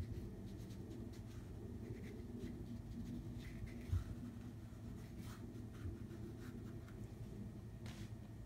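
Paintbrush working acrylic paint onto a canvas: faint, scratchy brush strokes over a steady low hum, with one soft thump about four seconds in.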